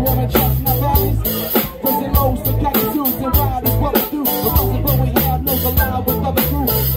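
Live band music: electric guitar playing a lead line over a drum kit keeping a steady beat, with a bass line underneath, in an instrumental passage.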